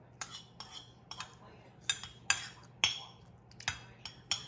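Metal spoon clinking and scraping against a dish while eating: about nine light, sharp clinks at uneven intervals.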